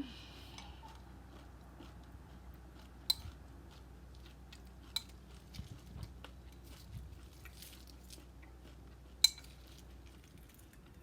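A person chewing a mouthful of cereal in almond milk, with a few sharp clicks of a spoon against the bowl, the loudest about three seconds and nine seconds in.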